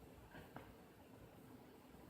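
Near silence: faint background hiss and a low hum, with one faint click about half a second in.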